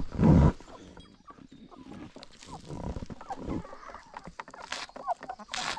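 Free-range chickens clucking softly as they feed, with scattered taps and rustles. A loud low thump comes right at the start.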